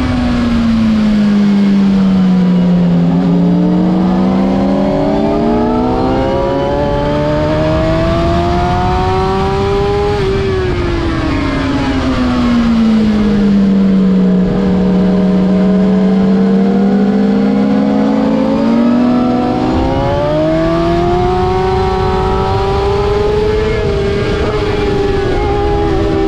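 A 2006 Suzuki GSX-R750's inline-four engine heard onboard at track speed, with wind rush underneath. The revs drop at the start, climb steadily for several seconds, fall away again around the middle, then rise once more near the end.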